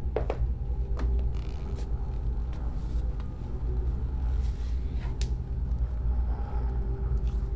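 A steady, deep, low rumbling drone, with a few faint short clicks or knocks near the start, about a second in and about five seconds in.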